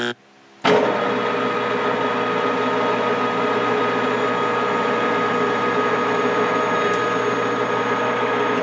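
Metal lathe running steadily from about a second in, its spindle and gear drive giving a steady whine as the threading tool feeds along the part under power.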